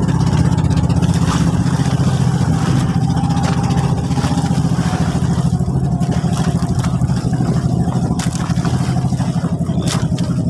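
Engine of a motorized outrigger boat running steadily while the boat is underway: a low, even drone with a fast pulsing beat.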